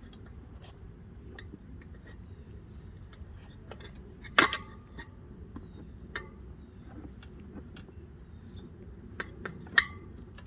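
Crickets chirping steadily in a continuous high-pitched trill. Over it come two sharp metallic clinks with a short ring, one about halfway through and one near the end, plus a few lighter taps, from steel tire spoons striking the wheel rim as a tire is levered on.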